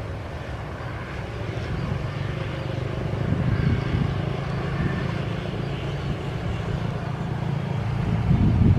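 Small motorcycle engines running with a steady low hum, getting louder as two motorbikes ride past close by near the end.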